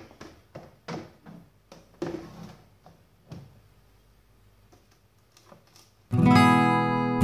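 Scattered light clicks and knocks as the TV's bare LCD panel in its metal frame is handled. About six seconds in, loud background music with strummed acoustic guitar starts suddenly and drowns them out.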